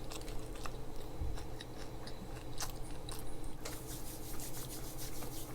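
Close-up chewing and mouth sounds of people eating sushi: scattered small wet clicks, with a denser run of fine crackles from a little past halfway, over a low steady hum.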